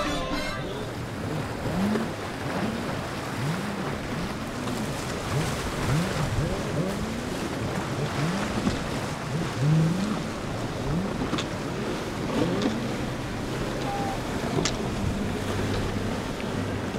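Motorboat engines running on the water amid wind noise on the microphone, their low pitch sweeping up and down again and again in short arcs.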